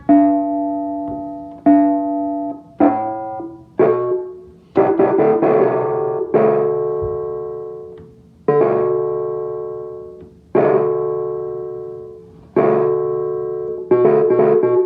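Piano playing an NHL goal-horn tune by ear: slow struck notes and chords, each left to ring and fade, with quicker runs of notes about five seconds in and again near the end.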